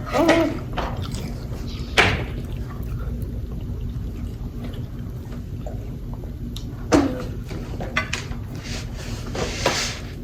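Close-miked wet chewing and mouth smacking of a sauce-dipped fried chicken sandwich: scattered sharp, sudden sounds, the clearest about two seconds in and again about seven seconds in.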